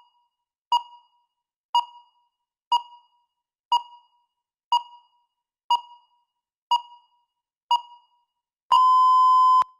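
Electronic countdown-timer beeps: a short ping once a second, then a steady beep about a second long near the end as the timer reaches zero, signalling that time is up.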